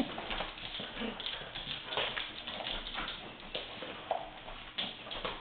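A dog eating from a metal food bowl, with irregular clicks and knocks of the bowl as he eats.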